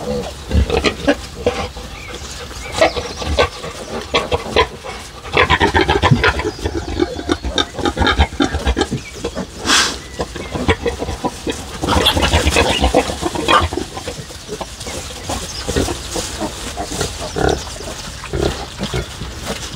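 A group of pigs, sows and young piglets, grunting and squealing in many short, irregular calls. The calls are busiest about five to seven seconds in and again around twelve to thirteen seconds.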